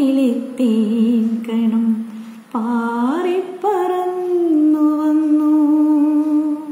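A woman singing unaccompanied: a slow melody of drawn-out notes that steps up in pitch about three seconds in, then settles into one long held note near the end.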